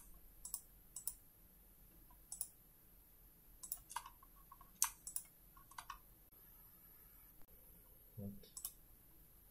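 Computer mouse clicking: a dozen or so sharp, separate clicks spread unevenly, several in quick pairs, as profiles are selected in CAD software.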